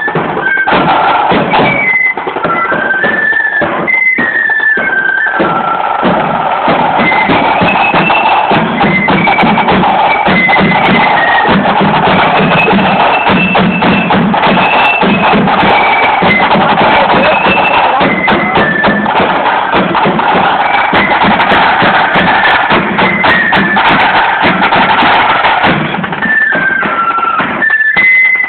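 Marching flute band playing a tune: flutes carry the melody over rapid snare-drum rolls and a bass drum beat. It is loud and continuous throughout.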